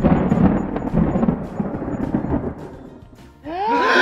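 Thunderclap sound effect: a sudden crash that rumbles and fades away over about three seconds, marking a dramatic realisation. Near the end a short pitched sound rises and falls.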